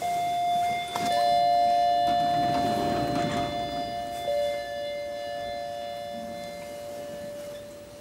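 Lift arrival chime ringing two notes, a higher one and then a slightly lower one about a second later, each ringing on and slowly fading over several seconds as the car arrives at the floor.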